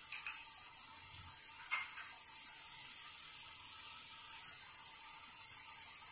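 Thick onion-tomato masala gravy sizzling and bubbling in a kadhai, a steady hiss as it fries in its separated oil. A spoon gives two light clicks in the first two seconds.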